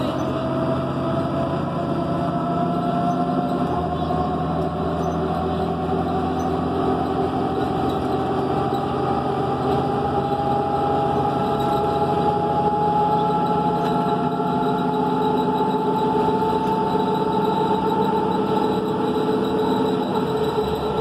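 New Flyer D40LF diesel transit bus under way, heard from inside the passenger cabin: engine and drivetrain running steadily, with a whine that climbs slowly in pitch over the first half as the bus gathers speed, then holds level.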